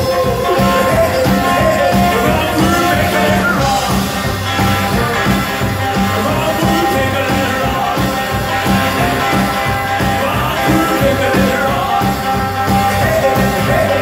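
Rockabilly band playing live, with electric guitars, upright bass and drums, at a steady level throughout.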